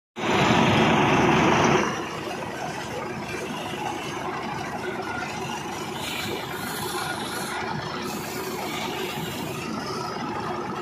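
Tractor diesel engine running under load while driving a front-mounted paddy reaper that is cutting standing rice, a steady mechanical drone. The first two seconds are louder, then it settles to an even level.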